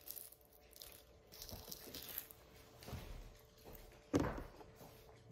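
A cheonhyehyang citrus being peeled by hand and pulled into segments: soft, irregular ripping and crackling of the rind and pith. A louder soft thump about four seconds in.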